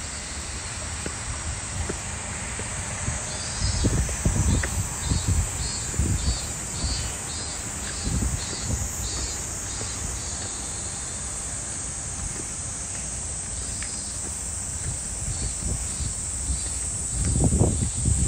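Outdoor ambience: a steady high hiss with a run of short high chirps, about two a second, for several seconds. Low thumps and rumbles come from walking, a few seconds in and again near the end.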